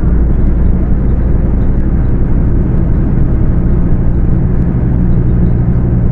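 Scania K250UB city bus's rear-mounted diesel engine running steadily at high revs while the bus is under way, a constant low drone.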